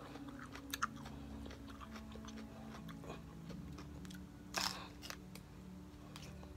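Raw celery stalk being bitten and chewed: crisp crunches, with one loud crunching bite about four and a half seconds in.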